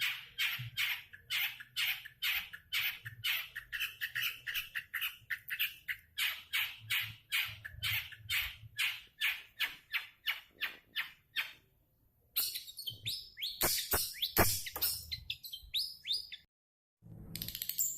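Long-tailed shrike (cendet) calling: a rapid string of evenly repeated notes, about three a second, breaks off about eleven seconds in. A denser, more varied run of calls follows, pauses briefly near the end, then resumes.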